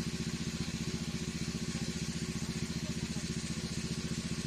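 A small engine running steadily at idle, with a fast, even pulse and no change in speed.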